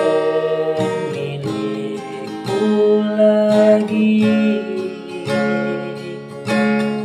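Music: a slow ballad with strummed acoustic guitar chords, a new chord struck every second or so.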